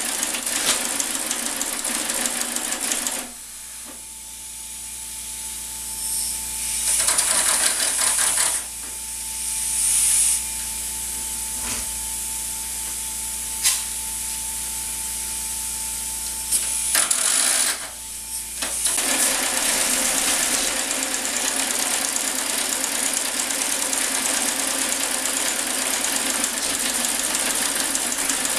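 Working model of a Marion 91 steam shovel running: its small engine and gearing clatter over a steady hiss. For about fifteen seconds in the middle the machinery goes quieter, with a thin steady tone, a few short bursts of hiss and a single click, then it runs at full noise again.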